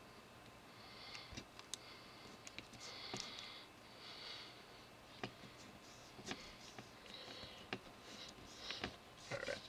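Quiet close handling: low-tack Tamiya masking tape pulled off and pressed down, giving several short scratchy rustles and a few light clicks and taps.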